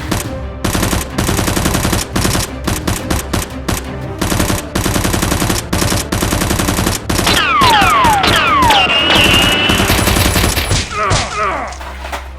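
Rapid, sustained automatic gunfire sound effects, shot after shot in quick succession, with several falling whistles about seven seconds in; the firing dies away near the end.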